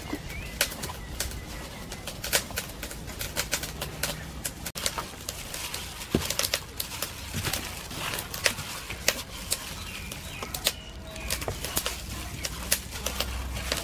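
Plastic-gloved hand kneading marinated pork ears in a stainless steel bowl: rapid, irregular wet squelches and smacks of the meat with crinkles of the glove.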